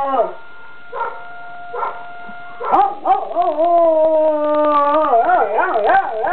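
A puppy howling along with a siren: one howl trails off at the start, the siren's steady tone carries on alone with two short yips, then a long wavering howl begins just under three seconds in and runs on.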